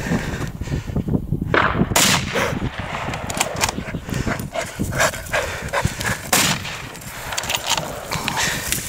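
Shotgun shots at a running wild boar, the clearest about two seconds in and about six and a half seconds in, among smaller knocks and rustling.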